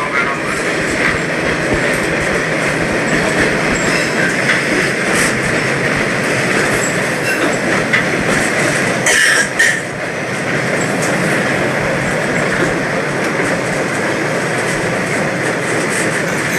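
MBTA Orange Line subway train running along the rails: a steady rumble and rail noise, with a brief higher-pitched sound about nine seconds in.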